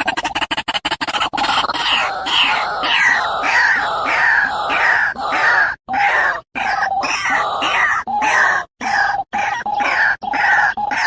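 A bird's loud, harsh squawks, repeated over and over, each call falling in pitch, with a few sudden breaks. A fast pulsing music beat ends about a second in.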